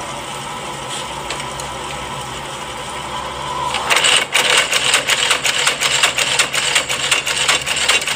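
Old heavy-duty industrial sewing machine, its motor humming steadily, then about four seconds in it starts stitching with a loud, rapid clatter as the needle drives through a quarter.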